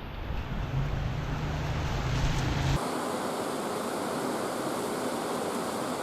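Wind buffeting a small camera microphone: a low rumble that cuts off suddenly about three seconds in, leaving a steady rushing hiss.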